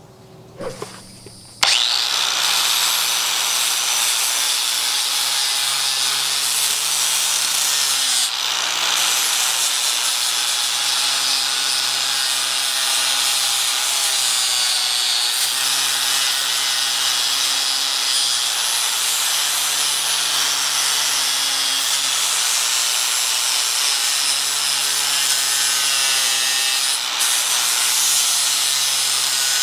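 An angle grinder spins up about two seconds in and runs steadily, its disc grinding against an old axe head clamped in a bench vise. The motor note dips and shifts briefly a few times as the disc works the metal.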